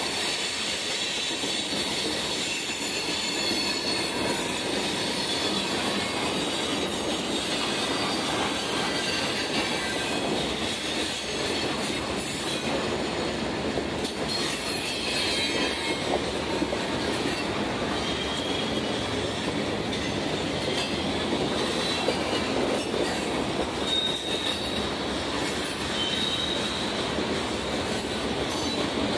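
A CSX freight train's cars rolling steadily past on the rails, with short high wheel squeals now and then.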